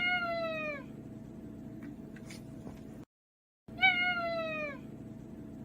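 A domestic cat meowing: two drawn-out meows about four seconds apart, each sliding down in pitch, with a faint steady hum behind them and a brief dead gap where the audio cuts out between them.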